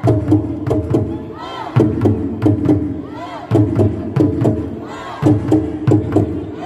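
Traditional Isan drums played in a driving, repeating rhythm with sharp clacking percussion on top, while the performers shout and whoop together in chorus.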